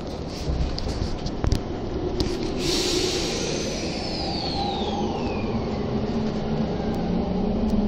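Tokyo Metro Tozai Line electric train pulling away from a station, heard inside the carriage. A few clicks and knocks come first, then a short hiss about two and a half seconds in. After that the electric drive whines, with one high tone falling while a low hum rises as the train gathers speed.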